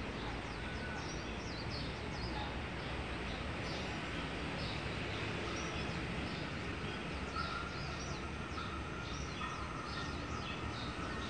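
Steady background noise of an open-air metro platform with small birds chirping over it, many short high chirps. A faint steady whine comes in about nine seconds in.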